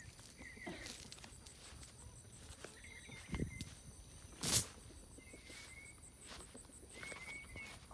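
Steady high-pitched insect drone with short warbling chirps every second or two, a few soft footstep-like thuds, and one sharp knock or rustle about halfway through.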